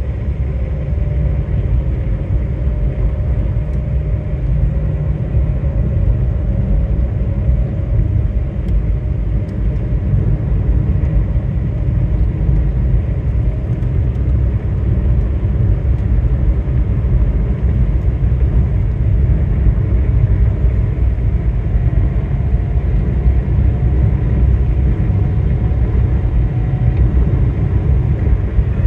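Steady low rumble of a moving vehicle, its engine and road noise running evenly throughout.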